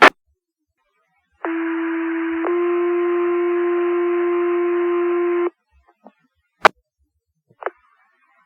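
Two-tone sequential paging tones over a fire dispatch radio channel: one steady tone for about a second, then a slightly higher tone held for about three seconds that cuts off sharply, the alert that sets off the volunteer firefighters' pagers. Short radio clicks at the start and twice near the end.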